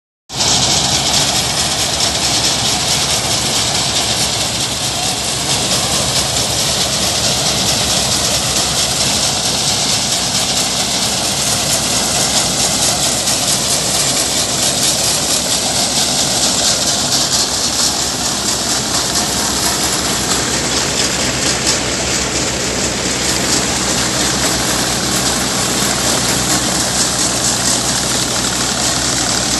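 Combine harvester running while cutting a standing grain crop: a steady engine hum under a loud, even mechanical hiss. It cuts in abruptly just after the start.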